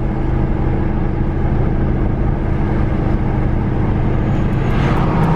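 A car driving, heard from inside: a steady drone of engine and road noise.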